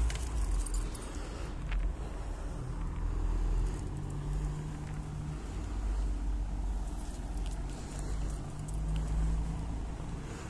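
Low, uneven rumble of car traffic on the street, swelling and fading, with a few faint clicks.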